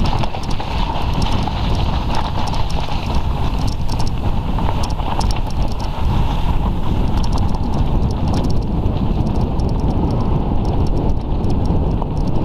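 Wind buffeting the microphone of a camera on a bicycle descending a snow-covered track, with a steady low rumble and irregular clicking and rattling from the bike rolling over the bumpy ground.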